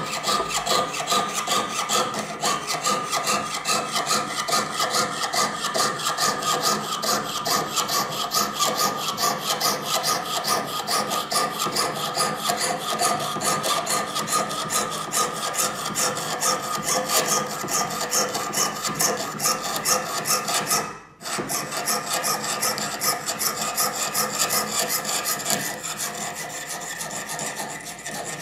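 Jeweller's piercing saw with a number 2 blade cutting 22-gauge titanium sheet, rasping in quick, even strokes, with a brief break about three-quarters of the way through.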